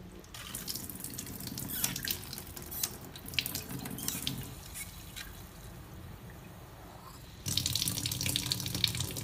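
Water running from a kitchen tap fitted with a Philips WP3828 faucet-mount water filter and splashing into the sink. It starts as a spray straight from the tap, eases off for a couple of seconds midway, and comes back louder as a steady stream from the filter's spout near the end.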